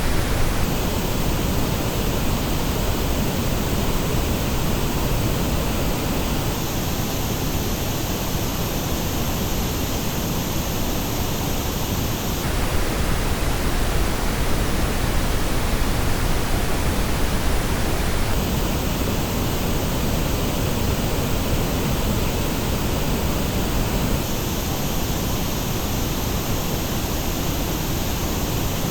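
Steady pink noise test signal, a full-range hiss, whose tonal balance changes every six seconds or so: some stretches are flat, others have dips in the upper mids and treble, as when the same noise is played back through different headphones.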